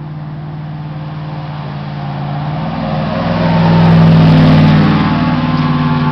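2006 Ford F-150's 5.4-litre Triton V8 driving past at speed on 35-inch Nitto Mud Grappler tyres. The engine note and tyre noise build as the truck approaches, peak about four seconds in as it passes, then fade as it pulls away.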